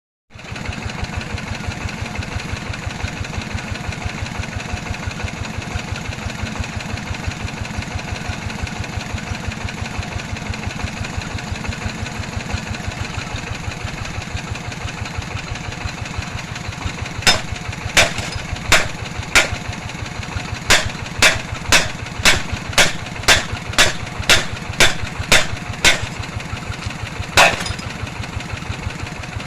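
Small engine of a well-drilling machine running steadily. Partway through comes a series of about fifteen sharp knocks, roughly one or two a second, then the engine runs on alone.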